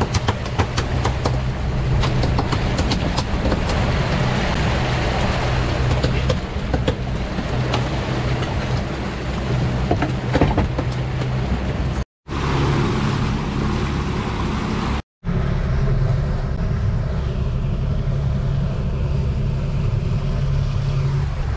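Suzuki 300 outboard motor running steadily under way, with wind and water rushing past the hull and scattered light clicks and knocks in the first half. The sound cuts out completely twice, briefly, about 12 and 15 seconds in.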